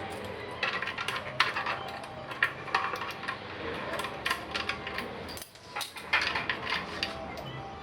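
Small metal parts and tools clinking and knocking against each other in a quick irregular run of light taps, with a short pause about five and a half seconds in.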